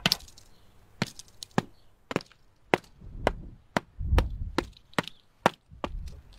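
Small hammer knocking on a baked salt crust, about ten sharp, separate blows at roughly two a second, cracking the crust open.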